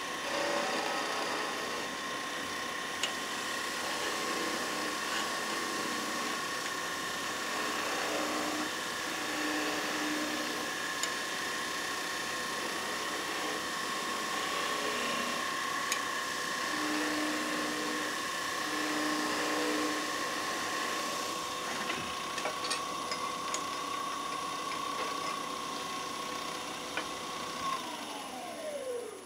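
Woodturning lathe running with a steady whine while a turning tool cuts a spinning pine blank, with a few clicks along the way. Near the end the lathe is switched off and its whine falls in pitch as it winds down.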